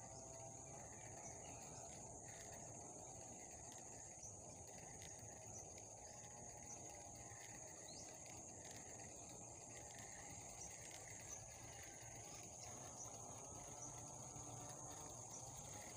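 Faint, steady high-pitched drone of insects such as crickets, with a few soft clicks.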